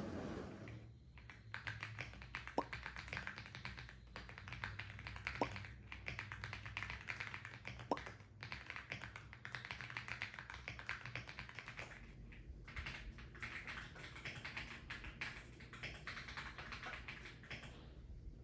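Typing on a new Aula F75 mechanical keyboard: quick runs of key clacks, with a few louder single key strikes in the first eight seconds and a short pause about twelve seconds in. The typing stops shortly before the end.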